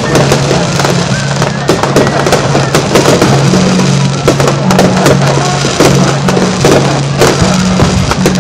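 Fireworks display: many bangs and crackles in quick succession, heard over music with held bass notes.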